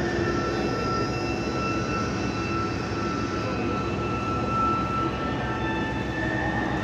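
Steady drone of workshop machinery: a continuous rumble with a few held whining tones on top.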